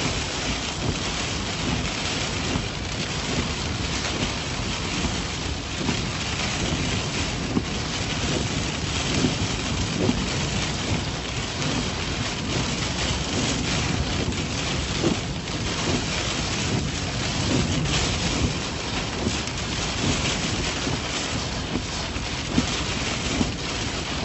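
Heavy storm rain and gusting wind, a steady rushing hiss with wind buffeting the microphone throughout.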